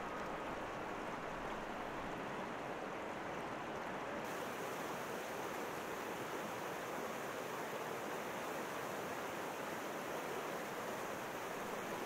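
River water running over rocks in shallow rapids: a steady rush that turns brighter and hissier about four seconds in.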